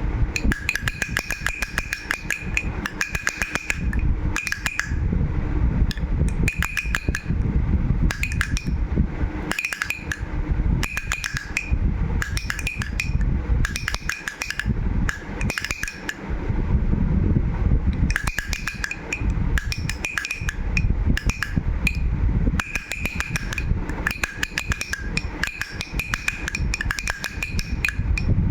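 Baby rattle shaken in repeated bursts of rapid clicking, with a bell-like ringing tone during each burst. A low rumble of handling noise lies underneath.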